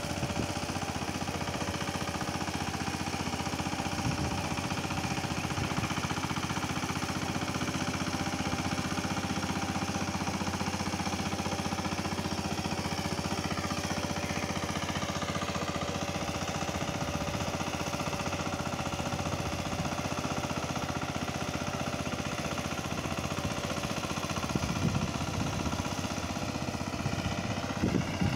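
Power tiller's engine running steadily as it drives a rotavator through flooded mud, puddling a rice field.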